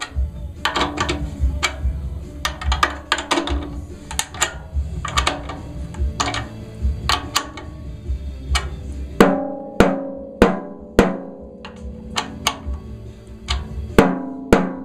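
13x7 ddrum Journeyman snare drum struck over and over while its batter head is being tuned low: quick, fairly light hits at first, then from about nine seconds in harder, spaced single strokes that ring with a clear low pitch.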